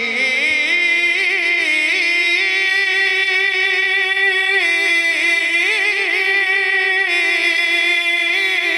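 A man singing one long held note of devotional Punjabi verse: the pitch climbs about a second in, then is sustained with wavering ornaments.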